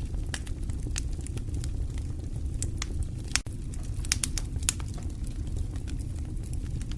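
Wood fire crackling, irregular sharp pops and snaps over a steady low rumble, with light rain pattering.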